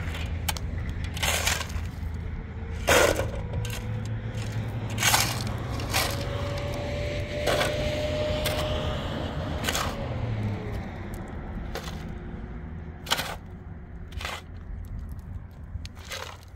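A series of sharp cracks and knocks, one every second or two at irregular intervals, over a low steady rumble that fades about ten seconds in.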